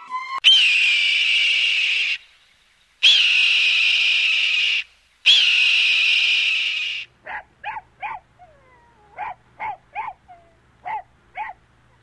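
A hawk screaming: three long, high, steady calls of about two seconds each. Then comes a run of about ten short, sharp yelps in groups of two and three.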